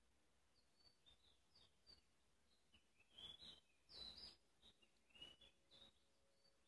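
Near silence, broken by faint, scattered high chirps of birds in the background and a brief soft scuffling of kittens wrestling in a plastic basin about three to four seconds in.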